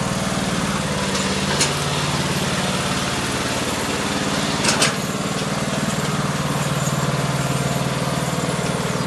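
Lawn mower engine running steadily, with two brief clicks about a second and a half in and again near the middle.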